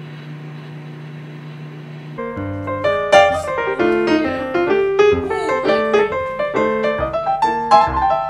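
A steady low hum of room noise, then about two seconds in, background piano music starts with a quick, busy run of notes.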